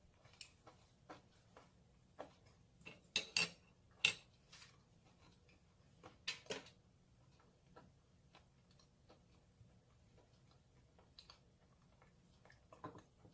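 Crisp pan-fried sweet potato jeon being eaten: sparse, faint crunchy bites and clicks, a few louder crunches clustered about three to four seconds in and again around six seconds.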